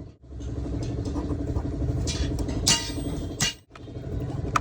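An engine idling steadily, with a few sharp metallic clicks of tools working on the car's CNG filter.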